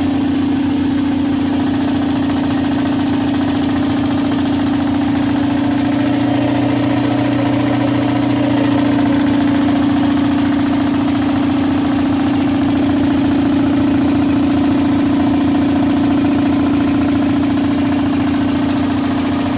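Belt-driven air compressor, fitted with a new 5-inch and 10-inch pulley pair and a tight belt, running steadily with a loud, even hum.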